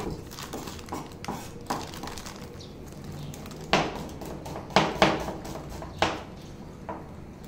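Kitchen knife chopping red onion on a plastic cutting board: irregular sharp knocks, a few light ones at first and four louder ones in the second half.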